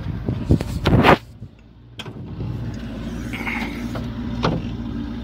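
Steady low hum of an engine running nearby, with a brief loud rattling knock about a second in as the engine hood of a JCB backhoe loader is raised.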